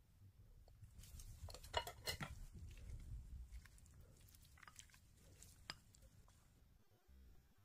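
Faint eating sounds: a quick run of clicks of a utensil against a dish with chewing about two seconds in, then two more single clicks.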